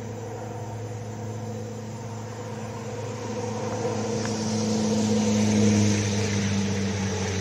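A steady engine drone with a low hum, growing louder from about three seconds in to a peak near six seconds, then easing slightly.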